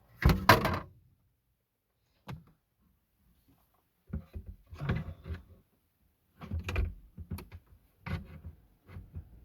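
Hard knocks and rattles of parts being handled: a loud clunk just after the start, a single click about two seconds in, then several short bouts of knocking and rattling.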